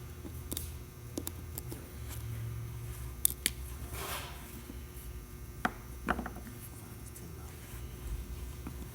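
Scattered light clicks and taps of small tools and parts being handled while a smartphone is taken apart, over a low steady hum.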